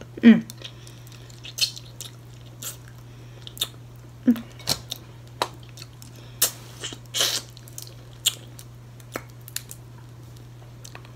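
Close-up eating sounds of boiled blue crab and shrimp: wet chewing, smacking and slurping, with scattered crackles and clicks as shells are picked and peeled by hand. The loudest is a short slurp near the start, falling in pitch.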